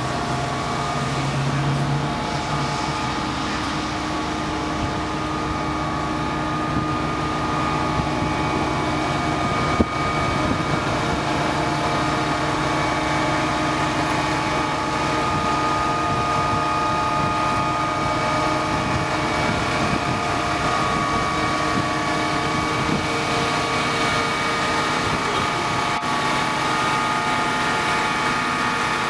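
Pierce fire engine's diesel engine idling steadily, with a single sharp click about ten seconds in.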